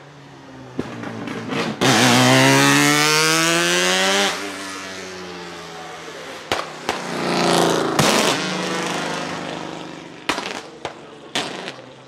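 Twin-turbo 13B two-rotor Wankel engine of a Mazdaspeed March 84G Group C race car at full throttle, accelerating hard. Its pitch climbs steeply for about two seconds, drops at a gearchange, then climbs again in the next gear before fading as the car pulls away, with several sharp cracks along the way.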